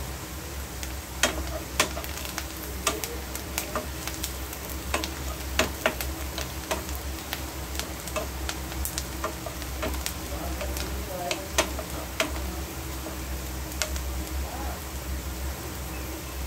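Food frying in a pan, a steady sizzle, while it is stirred: the stirring utensil clicks and scrapes against the pan at irregular moments.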